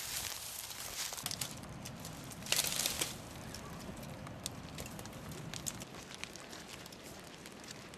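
Footsteps crunching through dry grass and dead leaves, with a louder rustling crunch about two and a half seconds in, then fainter scattered crackles.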